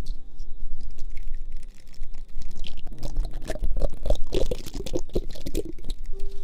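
Dense, irregular close-up clicks, taps and rustles, busiest in the second half, over a low rumble, with faint music fading out near the start.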